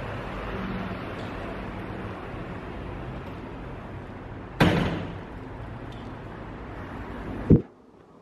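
Steady background noise with a sharp knock about halfway through that rings briefly, and a low thump near the end, after which the background cuts off suddenly.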